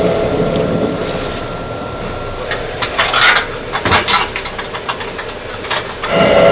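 Water pouring into flour in a steel dough-mixer trough, then a run of metal clanks and knocks as the mixer's hinged steel lid is pulled shut and latched; just before the end the mixer starts running with a steady hum.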